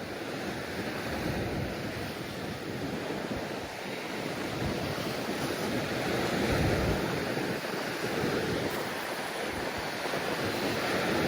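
Wind buffeting the microphone in uneven gusts over the steady wash of sea surf against a rocky shore, swelling a little about midway.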